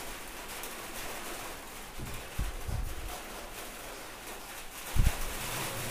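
Pastry brush being worked around the inside of a metal bowl to spread oil, a faint soft brushing. A few dull low thumps come from the bowl being handled, two a little before halfway and the loudest near the end.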